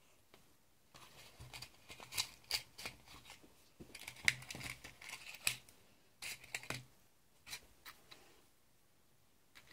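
Plastic drinking straw being handled and worked by hand: irregular runs of small clicks, crinkles and snaps for about six seconds, thinning out to a few scattered ticks near the end.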